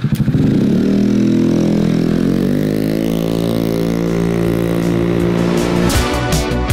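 Small engine of a mini bike pulling away, its pitch rising over the first second or so and then holding fairly steady as it rides off. Music comes in near the end.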